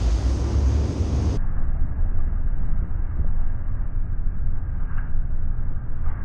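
Sport-fishing boat's engines and churning wake: a steady low rumble with rushing water. About a second and a half in, the sound abruptly turns duller and more muffled.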